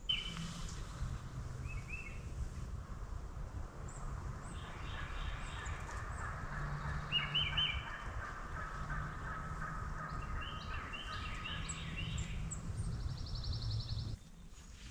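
Songbirds chirping and trilling at dawn, with wild turkeys gobbling in the distance. The sound cuts off suddenly near the end.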